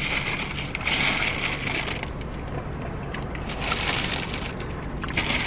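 Close-up chewing of crunchy fried food, crackling in stretches of about a second near the start, a second in and again near the end.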